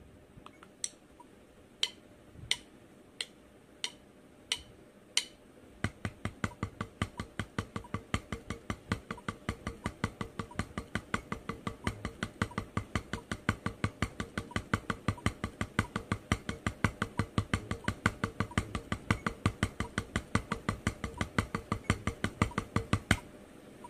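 Metronome clicking about one and a half times a second. From about six seconds in, wooden drumsticks play fast, even single strokes on a rubber practice pad: the single stroke threes-to-fours rudiment. The strokes stop shortly before the end.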